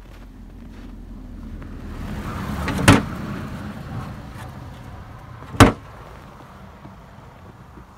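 A car driving past on a snow-covered road, its engine and tyre noise swelling and then fading away. Two sharp clicks stand out, about two and a half seconds apart, the first as the car goes by.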